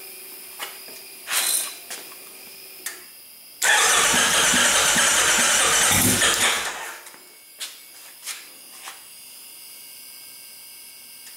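Rebuilt Kawasaki 1600 twin-cylinder engine on its first start-up attempt: a few light clicks, then about three seconds in it suddenly turns over and runs for about three seconds before dying away. The rest is quiet apart from a few clicks.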